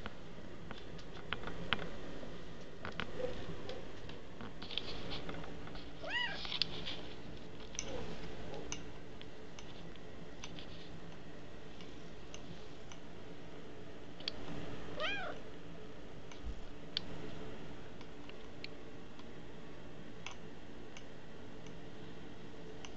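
A kitten meowing twice, each a short rising-then-falling meow, about six seconds in and again about fifteen seconds in, among scattered light clicks.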